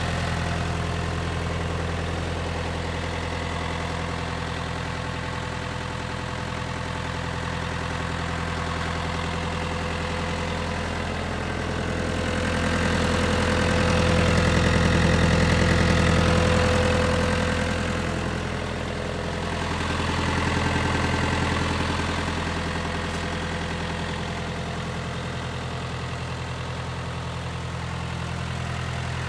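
Mitsubishi MTX24 compact tractor's diesel engine idling steadily. It grows louder for several seconds about halfway through, then settles back.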